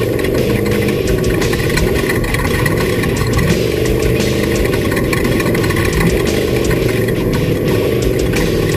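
Off-road race vehicle's engine running hard at a steady pitch, with many sharp clicks and knocks from the rough course.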